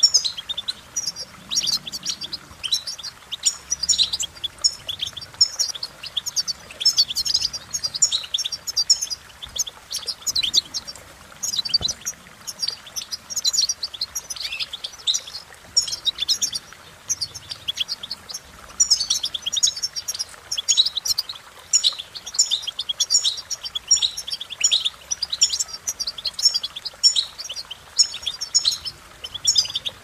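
European goldfinch singing: a fast, continuous run of high chirps and short trills, in phrases broken by brief pauses.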